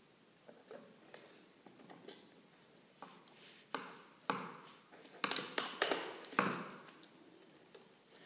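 Screwdriver turning the terminal screws on a new grounded receptacle, with the wires under them: small metal clicks and short scrapes. A few faint ticks at first, then a run of sharper clicks between about five and six and a half seconds in.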